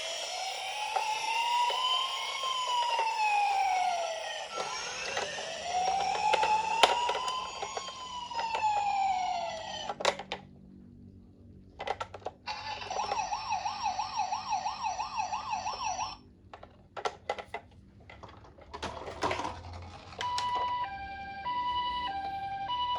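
Toy ambulance minicar's electronic siren: a slow rising-and-falling wail that cuts off about ten seconds in, then a fast warbling siren for a few seconds, a few sharp clicks, and near the end a two-tone hi-lo siren alternating between two pitches.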